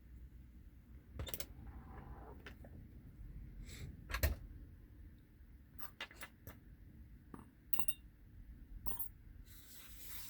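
Small metal clicks and clinks from handling an Ultion euro cylinder lock and its picking tools, irregular and spaced out, with one louder knock about four seconds in.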